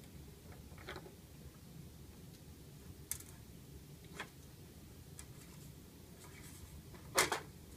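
Faint, scattered light clicks and scratchy scrapes of small hardware being handled, screws, washers and the display unit, with a louder cluster of sharp clacks near the end.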